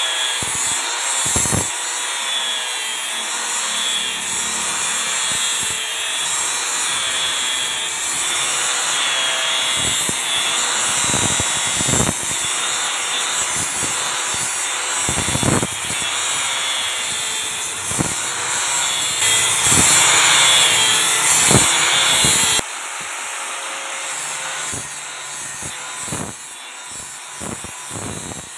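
Angle grinder with an abrasive disc grinding the edge of a granite tile to shape a bevelled stair-nosing edge: a steady motor whine over gritty grinding noise. It grows louder for a few seconds around two-thirds of the way through, then drops suddenly and stays quieter to the end.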